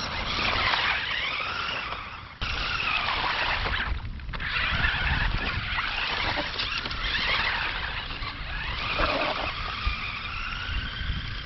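Bwine C11 1:10-scale RC truck's electric motors whining, rising and falling in pitch as it drives through puddles, with water splashing from its tyres.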